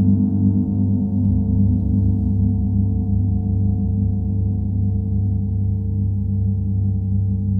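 Gong ringing with a sustained low hum that pulses steadily; a deeper tone swells in about a second in.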